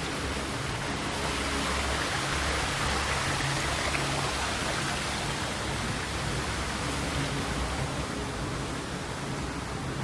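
Steady rushing noise, like running water or moving air, that swells a few seconds in and then eases off, over a faint low rumble.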